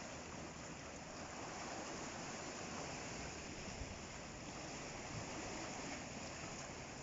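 Ocean surf washing steadily, an even rushing noise with no single crash standing out.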